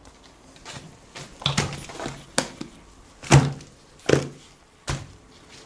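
Plastic acrylic paint tubes being picked up and set down on a work table: about five short knocks and thunks, the loudest two a little after the middle.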